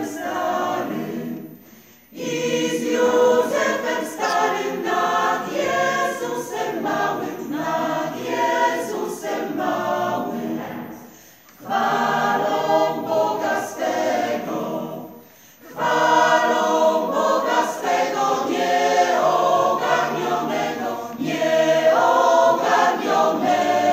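Mixed choir of women's and men's voices singing a cappella in long phrases, with brief breaks between phrases about two seconds in, near the middle, and about two-thirds of the way through.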